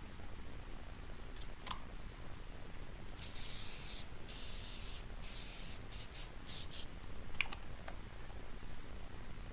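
Aerosol can of Cramer Tuf-Skin quick-drying tape adherent spraying onto the sole of a foot before taping: three hisses of under a second each, then a quick run of short puffs.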